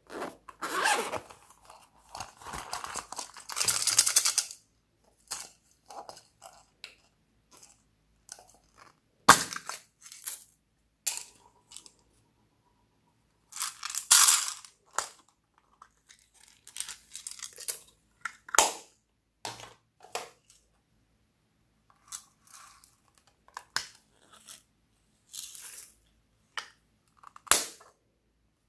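A zipper on a vinyl pencil case being pulled open in the first few seconds, then small plastic cases handled, giving rustles and a few sharp plastic clicks in short bursts with silent gaps between.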